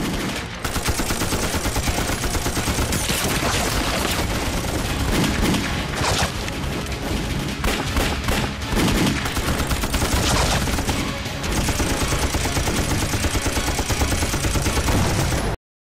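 Dense battle gunfire: many pistol and rifle shots overlapping in rapid volleys with no pause, cutting off suddenly near the end.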